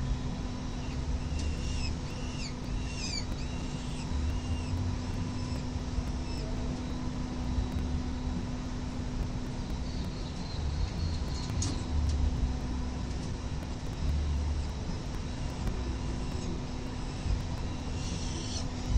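Steady low rumble of city traffic and wind at a high-rise ledge, with a constant low hum underneath. A few short, high bird chirps come about two to three seconds in.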